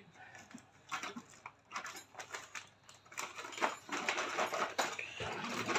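Hands rummaging among small parts: scattered clicks, knocks and rustling of plastic, busier in the second half.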